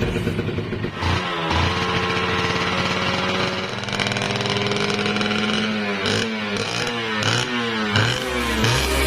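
Kawasaki Ninja 150R's two-stroke single-cylinder engine running at a steady speed, then revved up and dropped back several times in quick blips during the last few seconds.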